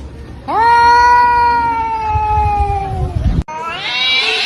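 A cat giving one long, drawn-out meow that slowly falls in pitch. After an abrupt cut comes a shorter call that rises in pitch.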